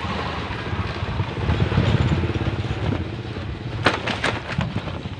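Small motorcycle engines running past on the street, with low wind rumble on the microphone. Two sharp clicks come about four seconds in.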